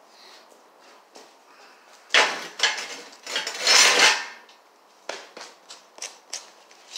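Clattering and scraping of objects being handled, with a longer scrape in the middle, then four light knocks a little under half a second apart.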